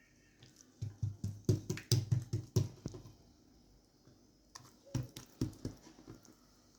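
Hands patting and folding buttered msemen dough on a work surface: a quick run of soft slaps and taps, then after a pause a second, shorter run.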